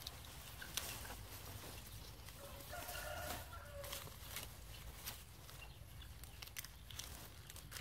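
Hands rustling and snapping through a clump of tall grass stalks, with short crackles throughout. A rooster crows once about three seconds in.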